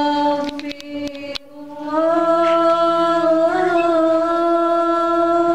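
A woman's voice singing Islamic sholawat into a microphone in long drawn-out melismatic notes: one held note, a brief break about a second and a half in, then a second long held note with a slight waver in the middle. A few light clicks sound under the first note.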